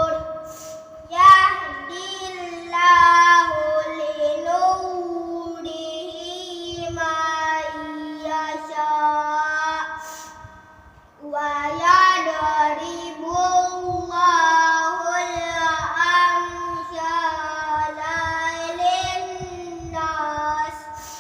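A child's voice reciting the Quran in a chanted, melodic style, with long held notes and wavering pitch. There is a short breath pause about halfway through.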